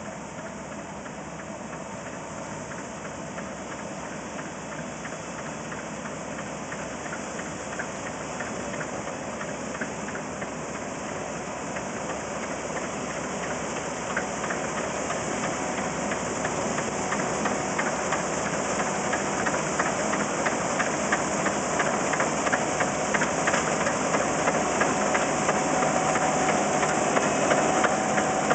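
New Holland CS6050 combine harvester running as it harvests rice, growing steadily louder.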